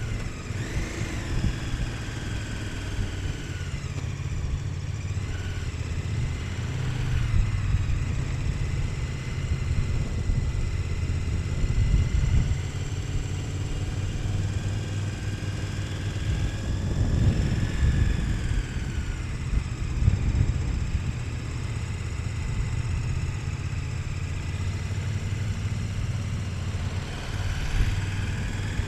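KTM 1290 Super Adventure S's 1301 cc V-twin engine running steadily while riding, its note rising and falling a little with the throttle.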